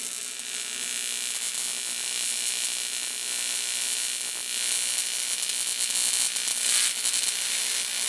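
AC TIG welding arc on 1/8 in aluminum at about 92 amps from an AHP Alphatig 200x: a steady, hissing buzz held without a break while a bead is laid.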